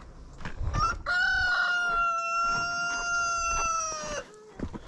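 Rooster crowing: one long crow of about three seconds, holding a steady pitch and dropping slightly at the end.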